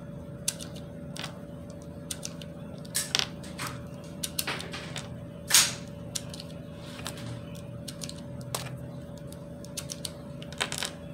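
Ruger 10/22 rotary magazine being loaded by hand with .22 LR cartridges: irregular small metallic clicks, a few of them louder, over a steady faint hum.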